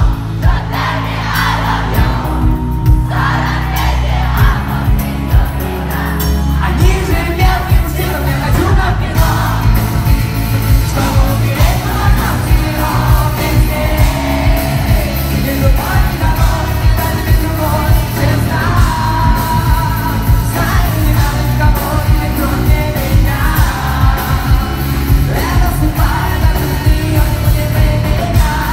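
Live band music with a singing voice, played loud through a concert PA and recorded from within the audience, over a steady, heavy beat.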